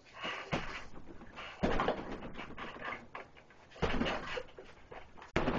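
Punches landing on a hanging heavy bag: four hard thuds, spaced one to two seconds apart, each followed by a short stretch of rustling noise.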